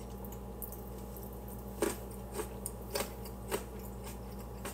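Someone chewing a raw carrot stick dipped in pimento cheese, with a few short crisp crunches spread through the middle of the chewing.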